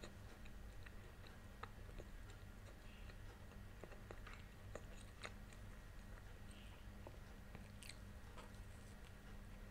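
Close-miked chewing of a Turkish meat pide (boat-shaped flatbread): soft scattered mouth clicks and small crackles, with a fresh bite near the end, over a faint steady low hum.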